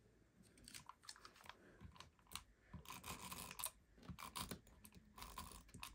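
Faint rustling and scattered light clicks of paper pieces and an adhesive tape runner being handled.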